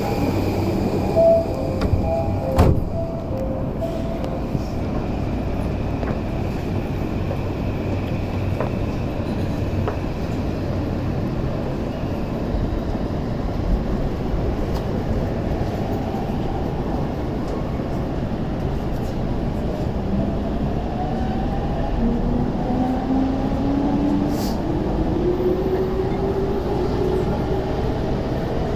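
Steady hum inside a JR E231-500 series electric commuter car standing at a platform, with a few short beeping tones and a sharp knock in the first three seconds. From about 20 seconds in, the VVVF inverter and traction motor whine starts and rises steadily in pitch as the train pulls away and accelerates.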